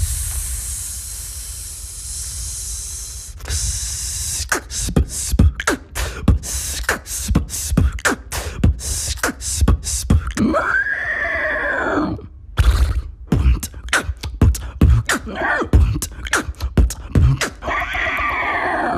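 Vocal beatboxing: a long breathy hiss, then fast mouth-made kick and snare beats, broken twice by an arching vocal imitation of a horse whinny, one in the middle and one near the end.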